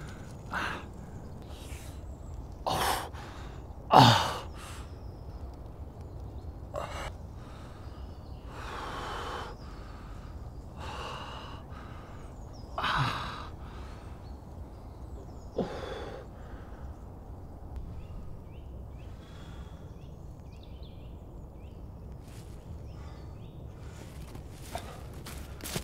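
A wounded man gasping and groaning in pain: a handful of short cries, several sliding down in pitch, the loudest about four seconds in. Near the end, footsteps on dry leaf litter.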